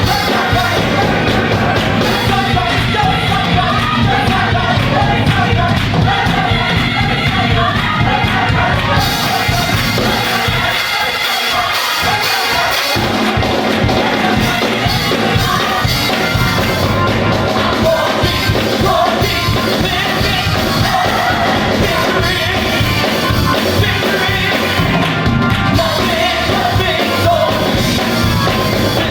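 Gospel choir singing with a full band. The bass and drums drop out for a few seconds about a third of the way in, then come back.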